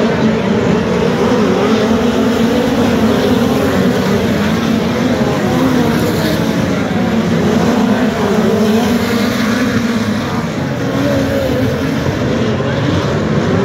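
Several speedway race cars lapping a dirt oval, their engines making a loud, continuous drone whose pitch wavers as they go around.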